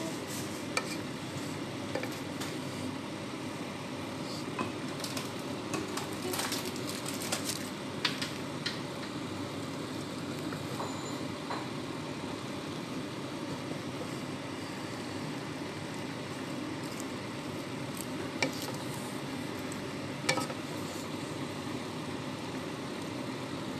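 Mixed vegetables cooking in a non-stick pan with a steady sizzling hiss, while a wooden spatula stirs them, knocking and scraping against the pan in a cluster between about five and nine seconds in and twice more near the end.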